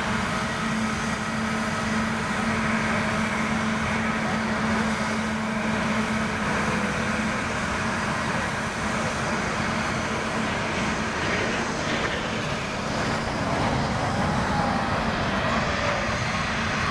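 Airbus A320neo jet engines running at idle while it taxis: a steady roar with a constant low hum.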